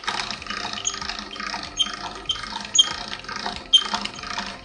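Hand-cranked stainless steel pasta roller turning as a sheet of dough is rolled through it, its gears clicking repeatedly with the crank, the dough being thinned on a narrower roller setting.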